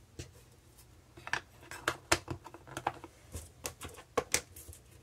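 A string of irregular sharp clicks and taps as the plastic cases of Distress Oxide ink pads are snapped shut and handled on a craft mat.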